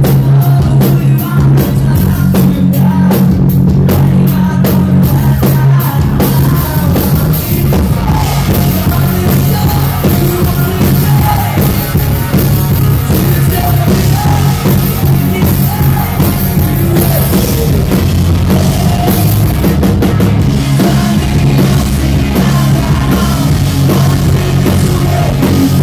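Rock band playing live and loud: electric guitars and drums with singing.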